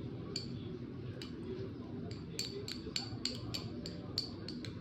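A metal utensil clinking against a bowl: a few separate clinks, then from about halfway a quick, even run of about four clinks a second, as in stirring or whisking.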